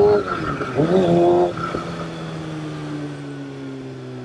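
Kawasaki Ninja ZX-6R's inline-four engine heard from the rider's mic. The revs drop, pick up briefly about a second in, then the engine runs quieter with its pitch slowly falling as the bike slows.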